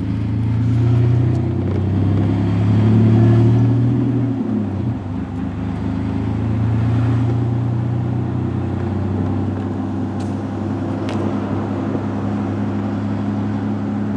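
A motor vehicle engine running with a steady low hum. It swells and rises slightly in pitch over the first few seconds, then settles back to an even run.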